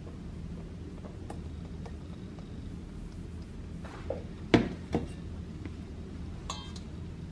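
Quiet kitchen handling over a steady low hum: flour poured and stirred with a silicone spatula in a stainless steel mixing bowl, with two sharp knocks about halfway through as a stainless steel bowl is set down on the countertop.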